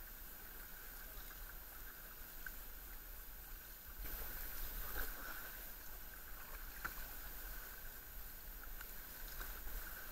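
Sea kayak being paddled: faint splashes of double-bladed paddle strokes and water lapping at the hull, a little louder from about four seconds in.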